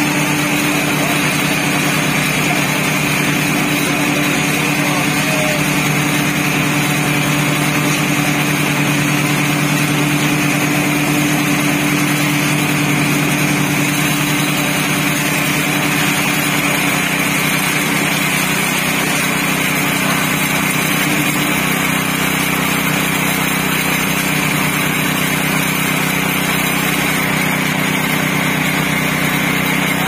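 Truck-mounted concrete pump's diesel engine running steadily at constant speed while pumping concrete through the boom hose.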